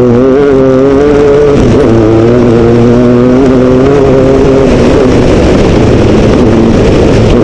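Mitsubishi MPR13 rally-raid car's engine heard on board, running under load along a gravel track over steady road and tyre noise. The engine note breaks briefly about two seconds in, then holds steady, growing less distinct in the last couple of seconds.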